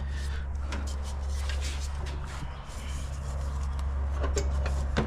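Light knocks, taps and scrapes of a powder-coated intercooler pipe and its coupler being worked down into place in an engine bay, over a steady low hum.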